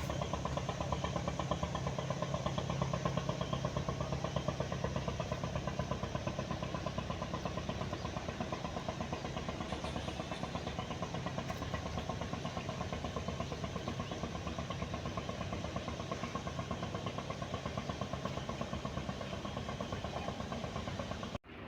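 Boat engine running steadily, with a fast, even beat; the sound cuts off abruptly near the end.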